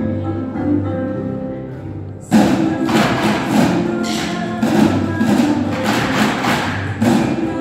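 Recorded music playing; a little over two seconds in, a group of children suddenly start drumming with sticks in rhythm with it, many strokes together.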